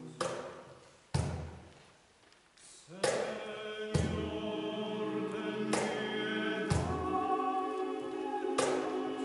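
Mixed choir singing sustained chords, punctuated by deep drum hits. The sound dies away almost to silence about two seconds in, then the choir and drum come back in together.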